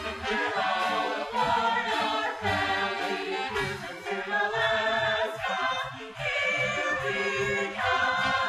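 A group of voices singing a show tune together over the band's backing music.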